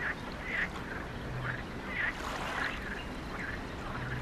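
Ducks quacking in a run of short calls, roughly two a second, over a steady outdoor background.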